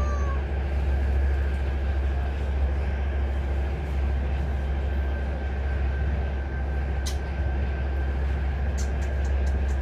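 Moving passenger train heard from inside the carriage: a steady low rumble with a thin, even whine above it, and a few light clicks late on.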